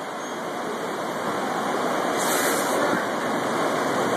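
Steady background noise of a busy distribution warehouse floor, an even wash of machinery and ventilation noise, with a brief hiss about two seconds in.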